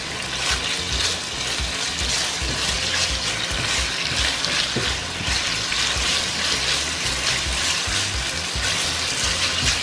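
Braised pork with a little of its broth sizzling in a hot pan as it is stir-fried over high heat, a steady hiss.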